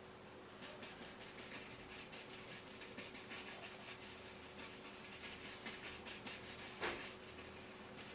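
Paintbrush loaded with oil paint scratching and rubbing against canvas in short, irregular strokes, with one louder stroke about seven seconds in.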